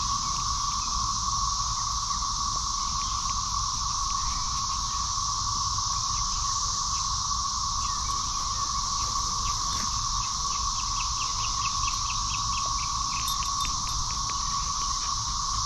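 Steady chorus of insects buzzing in two unbroken high bands. Faint short clicks come in a quick run over the middle to later part, the dog chewing its rubber toy.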